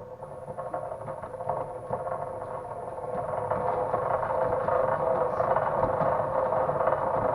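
Electric copper wire stripping machine switched on and running, a steady motor hum with a gear whine, growing louder over the first few seconds and then holding steady.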